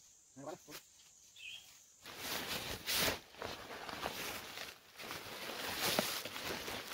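Outdoor rustling and crackling noise with many scattered clicks, which starts abruptly and gets much louder about two seconds in.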